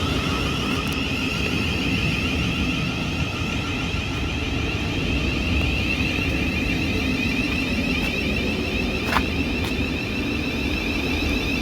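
Class 700 electric multiple unit passing at speed: a steady running rumble with a high, even tone riding over it, and a single sharp click about nine seconds in.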